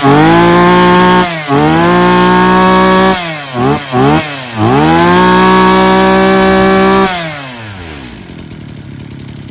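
Small two-stroke power-tool engine being revved by hand: the throttle is opened to full speed and held for a second or two, let off, opened again, blipped quickly a few times, then held high once more before dropping back to a quiet idle near the end. It is a test run showing the engine picks up quickly.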